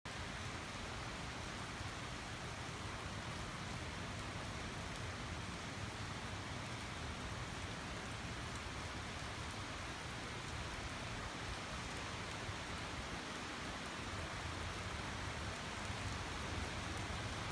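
Heavy rain falling steadily, a continuous hiss of rain on roofs and wet pavement, with a low rumble beneath it.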